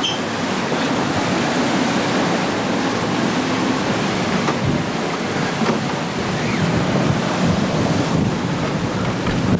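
Strong wind buffeting the microphone over the steady rush of waves and spray along a sailing ship's hull, heeled and under way in heavy weather.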